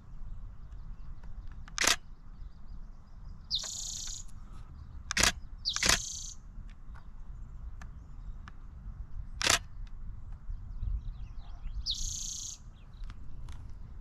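Single camera shutter clicks, four of them spread through the stretch, which are the loudest sounds. A bird gives three short, high, buzzy calls in between, over quiet outdoor background.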